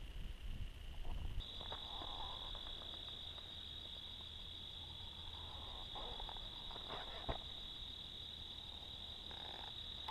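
Faint, steady high-pitched trill of night insects, one unbroken note. It steps up in pitch about a second and a half in, with a low rumble underneath.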